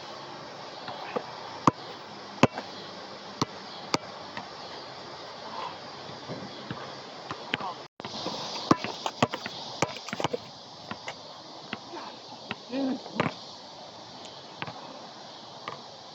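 Scattered sharp knocks and clicks of tools and metal parts being handled, over a steady hiss. The sound cuts out for a moment about eight seconds in, and after that the knocks come more often.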